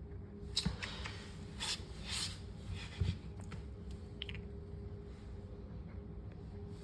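Short scraping and rubbing strokes with a few clicks and two dull knocks, from parts and a tool being worked while fitting a refrigerator roller wheel assembly, over a steady low hum.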